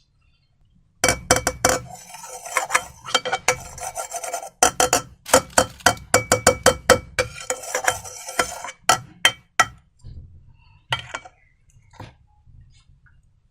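A utensil scraping, stirring and clinking against a hard container while slime ingredients are mixed: a fast run of sharp clicks and rasping rubs with brief ringing clinks, thinning out to a few scattered ticks near the end.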